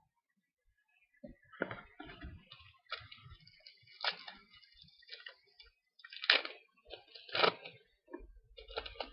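Foil trading-card packs and cards being handled: a run of sharp clicks and crackles, a few of them louder, starting about a second in.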